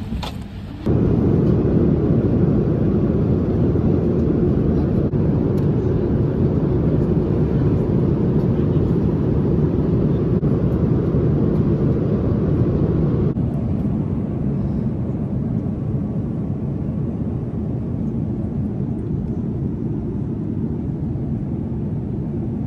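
Steady low rumble of airliner cabin noise in a Boeing 787-9, heard from an economy seat. It comes in abruptly about a second in and steps down slightly in level about halfway through.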